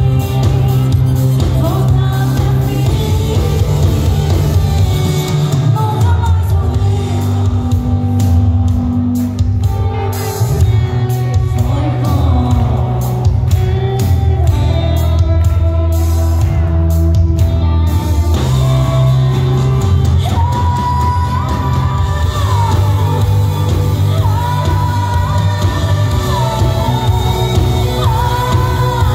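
Live pop song: a woman singing into a microphone over a band with drums, bass and electric guitar, played loud through a large hall's sound system.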